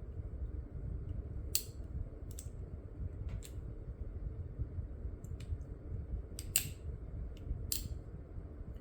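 Small sharp metal clicks from handling a percussion cap-and-ball gun as No. 11 caps are set on its nipples. There are about seven clicks at uneven spacing, the loudest about two-thirds of the way in, over a steady low hum.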